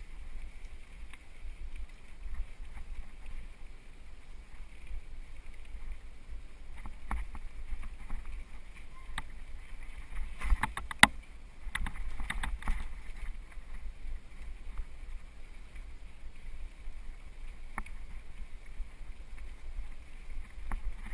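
Mountain bike ride noise picked up by a camera on the bike: a steady low rumble of wind and trail vibration, with a cluster of sharp rattling clicks about halfway through as the bike goes over rough ground.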